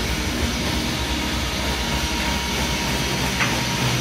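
Steady mechanical rumble and hum of workshop machinery running, with one brief faint tick about three and a half seconds in.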